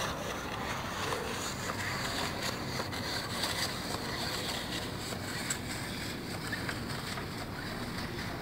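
Steady hiss of handling and air noise on a handheld phone microphone, with a few faint ticks from a hand-cranked paper automaton's mechanism being turned.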